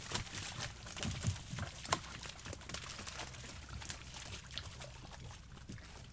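A large fish caught in a cast net thrashing in the water in the bottom of a small boat: splashing and thumping against the hull. The hits are hardest in the first two seconds, then ease into smaller splashes and knocks.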